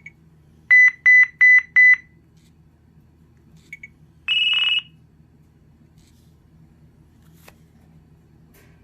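LG Venus (VX8800) cell phone beeping: a short keypress blip, then four quick loud high beeps in a little over a second, two more short blips, and a single higher tone lasting about half a second.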